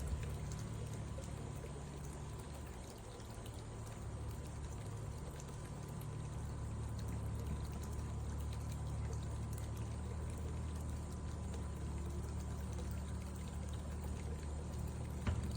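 AIPER Seagull SE robotic pool cleaner running under water with a steady low motor hum, its pump churning and pouring water.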